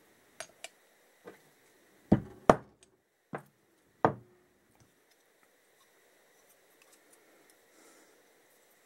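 Handling knocks from carburetor parts and tools on a workbench: a few light clicks, then four sharper knocks between about two and four seconds in, then only faint ticks.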